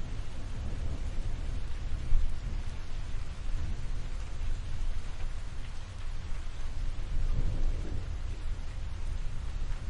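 Thunderstorm: steady rain with deep rolling thunder underneath. A brief loud crack comes about two seconds in, and another rumble swells about seven seconds in.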